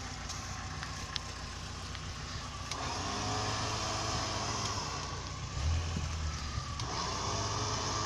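Lada Niva's engine pulling through deep mud: running steadily at first, then revving up about three seconds in, easing back with a low rumble, and revving up again near the end.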